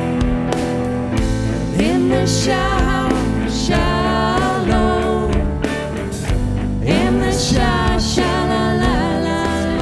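Music: a song with a voice singing over an instrumental backing with a steady beat.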